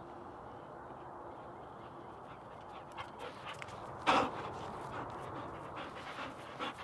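A black Labrador–whippet mix dog, a tennis ball in its mouth, breathing hard close by as it runs up. There are short scattered clicks and one brief loud burst about four seconds in, as the dog comes right up close.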